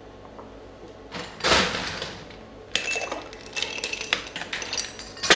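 Ice cubes tipped from a metal scoop into a highball glass: a loud rattle about a second and a half in, then a run of clinks and rattles as the cubes strike the glass and one another.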